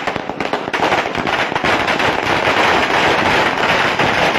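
A string of firecrackers going off: a rapid, continuous crackle of many small bangs.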